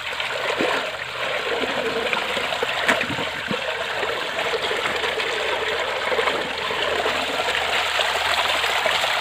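Water pouring steadily from a pipe outlet onto rocks in a shallow stream, splashing as a bunch of fresh coriander is swished and rinsed in the flow.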